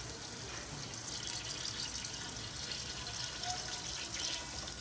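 Chopped spring onions sizzling in hot oil in a large aluminium pot: a steady hiss with scattered crackles.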